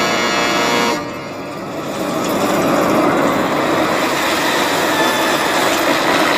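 A truck's horn sounding for about a second, then the truck's engine running steadily as it pulls in. All of it comes through a heavily distorted, pitch-shifted 'G Major' audio effect.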